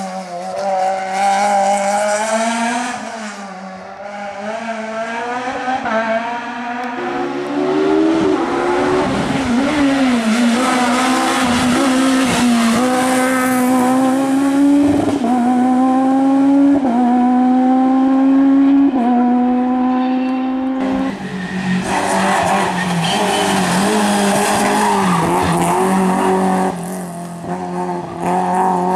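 Rally car engines driven hard on a tarmac stage. One car accelerates up through the gears, its pitch rising and dropping back at each upshift about every two seconds. Another engine and tyre noise follow near the end.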